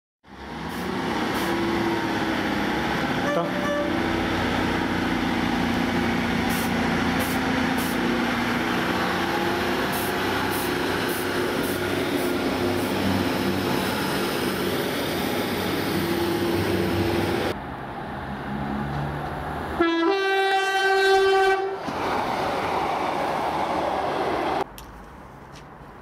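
A British diesel multiple unit running past with a steady drone and repeated clicks. After a break, a short two-tone train horn blast sounds about twenty seconds in, lasting under two seconds. After that it goes quieter.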